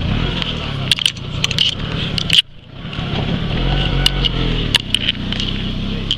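Five-a-side football match on artificial turf: sharp knocks of the ball being kicked, many in quick succession, over a steady low rumble and faint voices.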